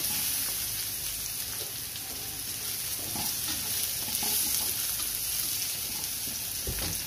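Chopped green chillies, garlic and onion sizzling in a stainless steel wok as a spatula stirs them, with light scraping of the spatula on the pan.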